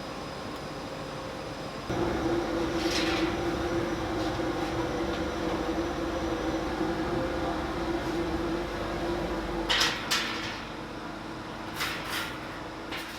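Button-making machinery: a machine starts about two seconds in and runs with a steady hum, over the factory's background noise. Near the end it stops, and a few sharp clacks follow.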